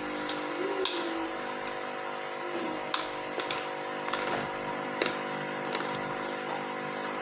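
Eating sounds during a mukbang: a few scattered sharp clicks and light knocks over a steady background hum.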